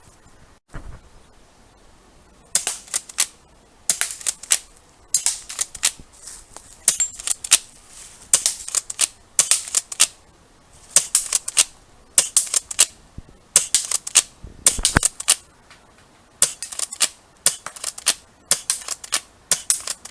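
S&T 870 Super Magnum spring-powered airsoft pump shotgun being pumped and fired over and over: clusters of sharp clacks and snaps roughly once a second, with a duller thump about fifteen seconds in.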